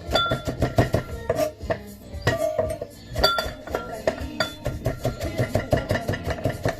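A kitchen knife finely chopping fresh coriander on a chopping board: rapid, repeated knocks of the blade against the board.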